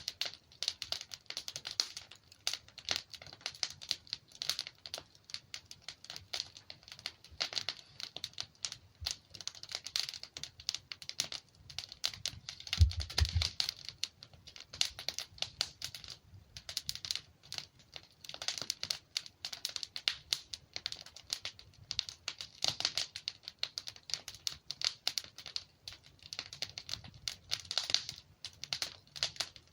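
Burning wood logs in a fireplace crackling and popping, with a dense, irregular run of sharp snaps throughout. A single dull low thump about halfway through is the loudest moment.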